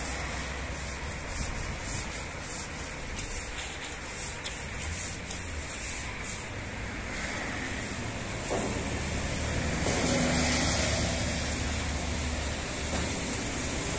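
Long-handled brush scrubbing the soapy metal side of a fuel tanker's tank, in repeated bristle strokes, over a steady low rumble. It gets louder about ten seconds in.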